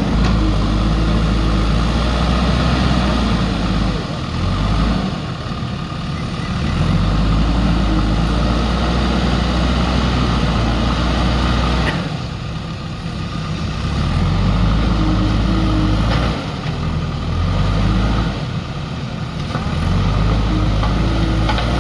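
JCB backhoe loader's diesel engine running hard under load, easing off toward idle several times and picking up again.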